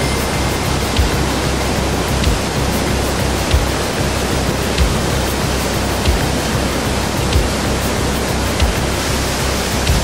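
Rhine Falls: a large waterfall rushing in a loud, dense, steady noise, with a soft low thud repeating about every second and a quarter.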